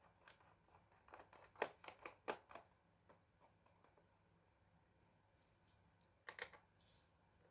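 Scattered small clicks and taps of hands and tools working on a laptop's plastic case: a quick cluster about a second in and another pair near the end.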